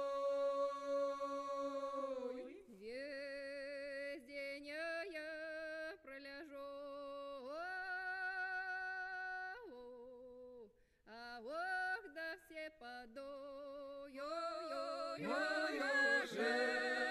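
Vocal music: a single voice sings long held notes and gliding phrases with vibrato, and more voices join in layered harmony near the end, growing louder.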